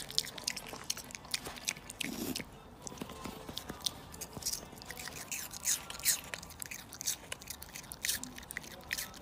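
A piglet chewing food with its mouth open: an irregular run of sharp chewing clicks, several a second.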